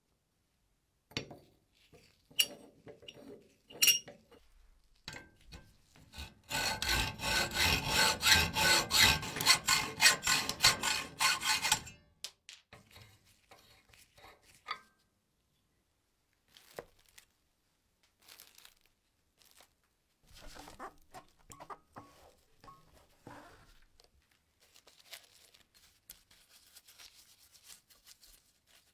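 Rapid back-and-forth hand abrading strokes on a part of an old sugar grinder, loud for about six seconds in the middle. Scattered clicks and light handling knocks come before and after.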